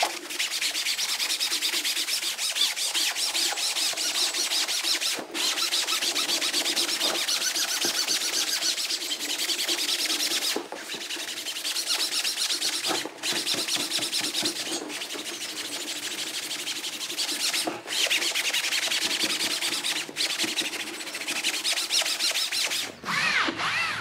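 Melamine foam eraser pad scrubbed back and forth over wet, textured vinyl upholstery: a steady rasping rub, broken by short pauses between strokes.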